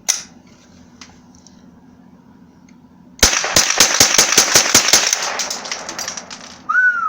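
Semi-automatic firearm fired in a rapid string, one shot after another as fast as the trigger is pulled, about six shots a second for nearly three seconds, starting about three seconds in.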